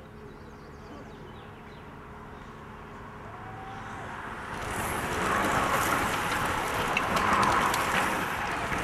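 A pack of road racing bikes sweeping through a corner: a rush of tyres and wind that swells over several seconds and peaks as the riders pass, with many fine ticks from the bikes.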